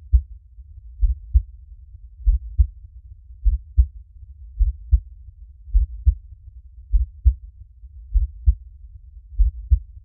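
A slow, steady heartbeat: deep double thumps (lub-dub) about every 1.2 seconds, with a faint low rumble between beats.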